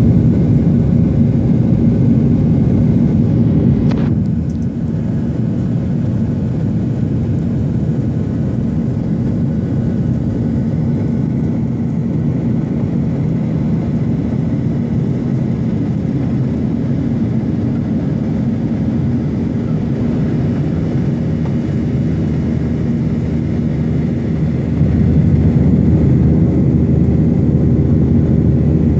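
Jet airliner's engines running with a steady, low-pitched roar. There is a sharp click about four seconds in, after which the roar is slightly quieter, and it grows louder again near the end.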